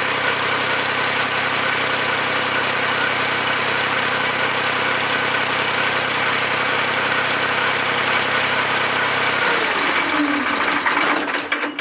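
Dongfeng farm tractor engine idling steadily through its newly repaired muffler. About nine and a half seconds in it is shut off and runs down with a falling tone, stopping near the end.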